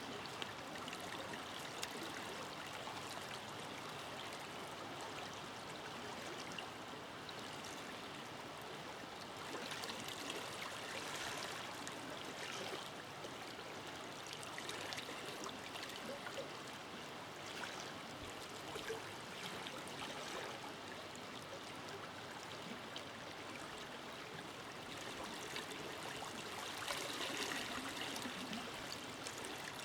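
Forest river flowing steadily over stones, a continuous rushing and trickling, swelling a little about ten seconds in and again near the end.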